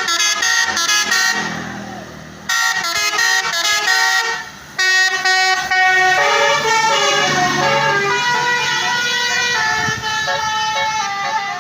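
A bus's 'telolet basuri' musical air horn playing quick melodic tunes, the notes changing several times a second. It sounds in three bursts: one at the start, one about two and a half seconds in, and a longer, slower tune from about five seconds in.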